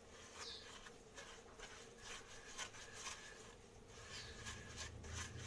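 Spatula stirring and scraping fine semolina and table oil in a glass bowl: faint, irregular rubbing strokes as the oil is worked into the dry grains.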